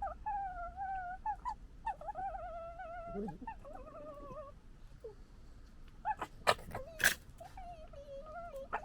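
Red foxes squabbling: a string of high, wavering whining calls, with two sharp, loud, harsh cries a little past the middle.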